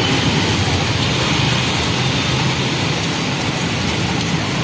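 Rain pouring down in a steady, dense hiss.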